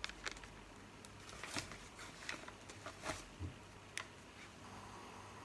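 Faint, scattered rustles and small ticks of a paper receipt being handled, about half a dozen over a few seconds, over quiet room tone.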